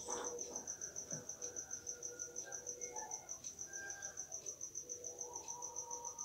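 A cricket chirping steadily, a high pulsing trill of about seven or eight pulses a second. Under it, faint long held tones.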